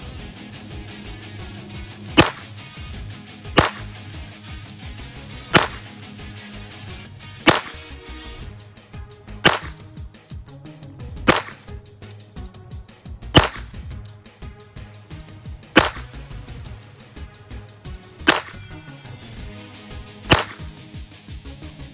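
Glock 44 .22 LR pistol fired ten times in slow, aimed single shots, about one every two seconds, over background music.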